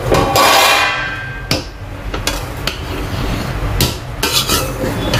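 Metal slotted spoon turning boiled rice in a metal pot: a scraping rustle near the start, then several sharp knocks of the spoon against the pot.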